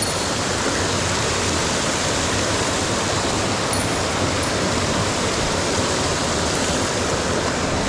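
Mountain stream rushing over rocks: a steady, unbroken wash of water.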